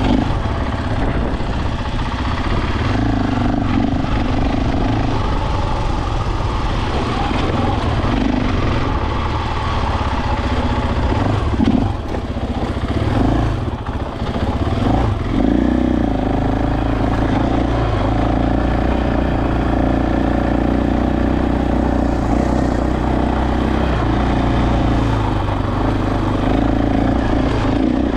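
KTM dirt bike engine running as the bike rides along a trail, holding a fairly steady note, with two brief drops in level about twelve and fourteen seconds in.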